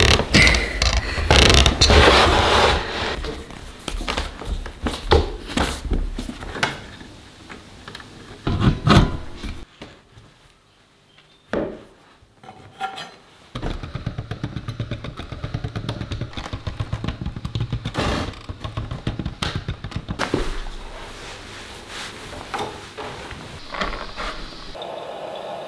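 Noodle dough being kneaded and worked by hand on a floured wooden board: pressing, slapping and scraping. It goes quiet about ten seconds in, then picks up again as a fast, regular run of strokes.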